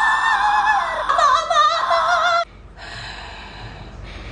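High, wavering singing-like melody with heavy vibrato for about two and a half seconds, cut off abruptly, then a quieter, steady breathy rasping noise.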